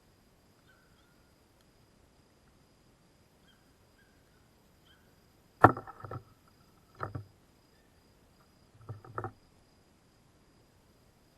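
Knocks with a short ringing tone in three clusters: a sharp one just after halfway with a couple of smaller ones after it, another about a second later, and two close together near the end. A faint steady high tone runs underneath.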